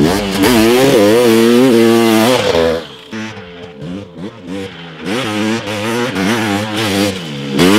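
Honda CR500 single-cylinder two-stroke engine with a dual FMF exhaust revving, its pitch rising and falling as the throttle works. It is loud for the first couple of seconds, drops back, then builds again toward the end.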